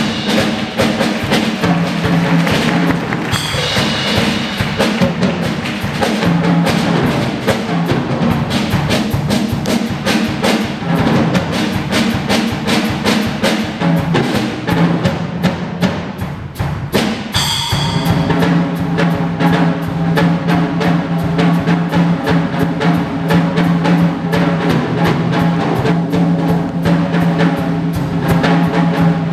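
Big band rhythm section playing a funk groove: drum kit and congas keeping a dense, driving beat over an electric bass line, with the horns no longer leading. The groove thins briefly a little past the middle, then comes back in full.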